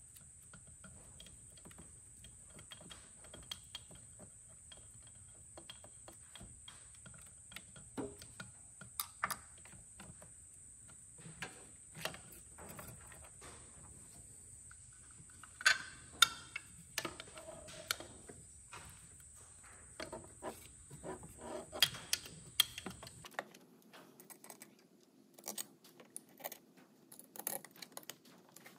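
Small clicks, taps and a few sharper snaps of plastic parts, connectors and wiring being handled while a JB4 piggyback ECU's circuit board and case are fitted. Under them runs a faint steady high whine that cuts off about two-thirds of the way through.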